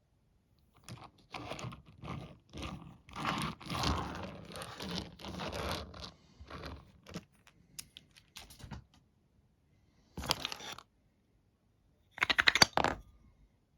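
Packaging being handled: irregular rustling, crinkling and clicking, with two louder short bursts near the end.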